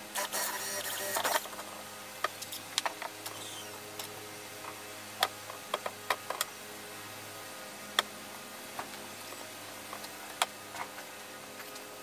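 Hands working on a plywood box and threading a rope through it: about a second and a half of harsh rustling noise at the start, then scattered sharp clicks and knocks, the loudest about five and eight seconds in.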